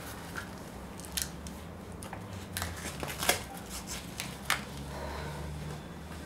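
Scattered sharp clicks and rustles as a foam neck collar is fitted and handled around a woman's neck, over a low steady hum.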